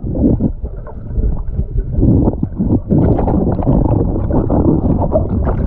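Loud, muffled churning and sloshing of water heard by a camera held under the surface, with scattered knocks and bubbling.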